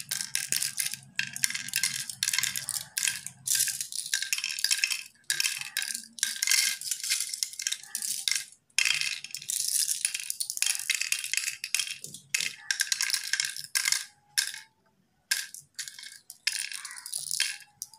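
Cowrie shells clicking and clattering as they are dropped by hand, a few at a time, into the hollowed pits of a wooden pallanguzhi board, with two short pauses.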